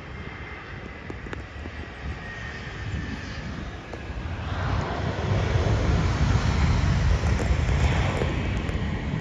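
Jet engines of an American Eagle Embraer regional jet taxiing close by: a low rumble with engine hiss that swells about four seconds in and stays at its loudest for the next few seconds.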